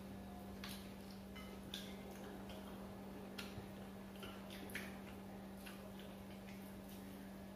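Scattered light clinks of spoons against plates as people eat, at irregular intervals, over a steady low hum.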